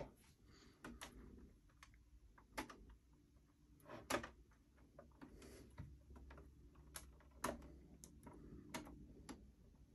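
Faint, scattered clicks and taps of fingers handling a model car and its display base, about ten in all, the loudest about four seconds in.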